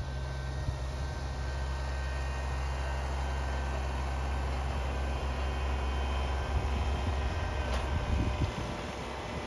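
Kubota BX compact tractor's three-cylinder diesel engine running steadily, the engine note growing rougher and a little louder for a couple of seconds near the end, with one short click.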